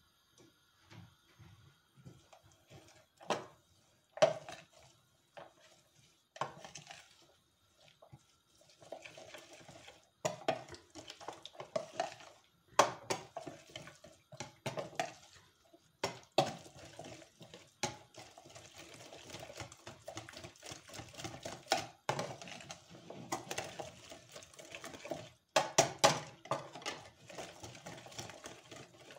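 Kitchen utensils and dishes clinking, knocking and scraping in irregular bursts, with a few sharper knocks standing out.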